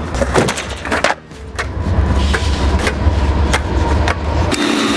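Skateboard wheels rolling fast over concrete with a steady low rumble. Sharp clicks come every second or so as the wheels cross cracks and joints. The rumble cuts off about a second before the end.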